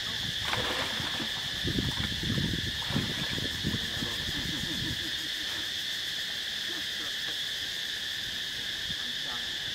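Water splashing and sloshing as macaques swim and clamber in a pool, loudest in the first half and dying away after about five seconds, over a steady high-pitched insect drone.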